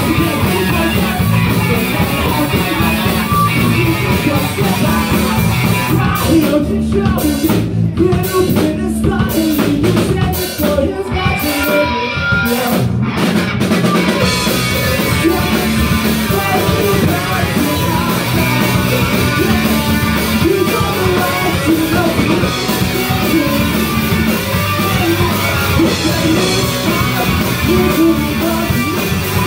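Live punk/emo rock band playing: a singer singing over electric guitar, electric bass and a drum kit. For several seconds in the middle the higher sound cuts in and out in short stops, then the full band carries on.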